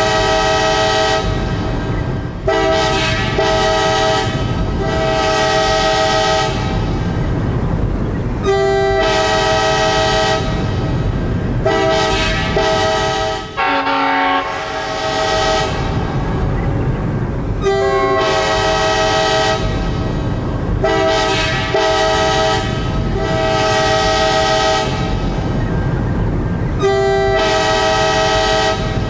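Locomotive air horn sounding in a series of loud blasts, several notes held together as a chord, some short and some long, with short gaps between them, over a steady low rumble. The pattern repeats about every nine seconds, with a brief break near the middle.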